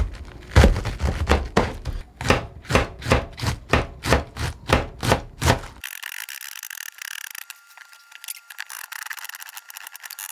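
Kitchen knife shredding a head of cabbage on a cutting board: quick, even chops about four a second, each a crisp crunch with a knock on the board. About six seconds in, the knocks stop and only a thinner, crisp crackle of slicing goes on.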